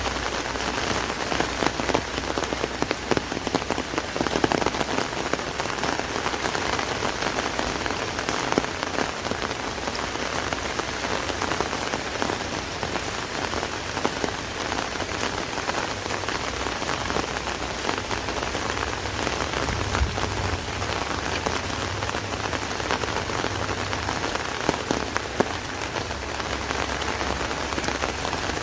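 Steady rain falling on an umbrella overhead: a dense hiss of drops with many sharper single drop hits.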